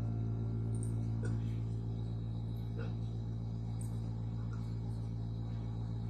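A steady low hum at one unchanging pitch, with a few faint small clicks over it.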